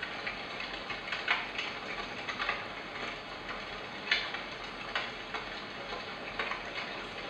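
Three Sheep S1 white noise machine playing one of its built-in ambient sounds through its small speaker: a steady hiss with irregular sharp clicks about once or twice a second.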